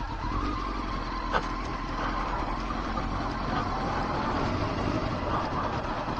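Honda Fireblade motorcycle's inline-four engine running steadily as the bike rolls slowly along a driveway, with a single sharp click about 1.4 s in.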